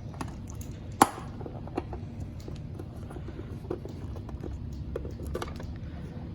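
Handling noises: scattered light clicks and knocks over a low steady hum, with one sharp click about a second in.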